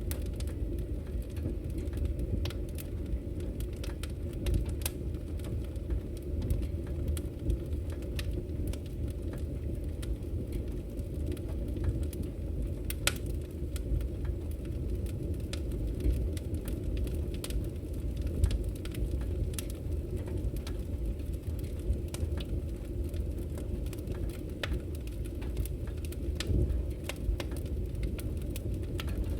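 Open wood fire crackling steadily, with frequent sharp pops and snaps over a low roar of flame.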